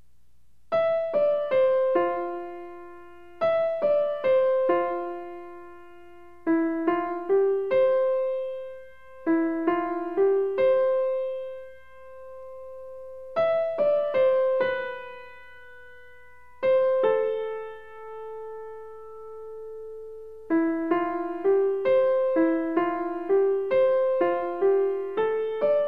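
Background music: a gentle solo piano melody of single struck notes that ring and fade, with a short gap about halfway through and quicker notes near the end.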